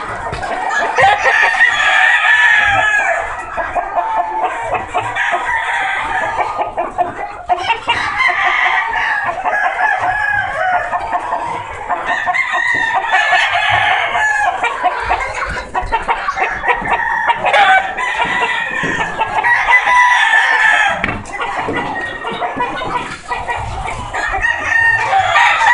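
Roosters crowing again and again, a long call every few seconds, over steady clucking from the flock.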